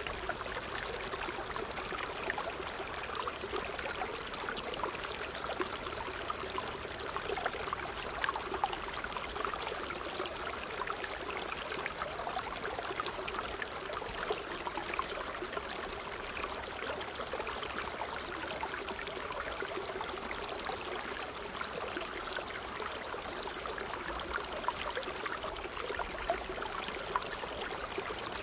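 Small creek rushing over rocks in a little cascade: a steady, even rush of water with constant small splashes and bubbling.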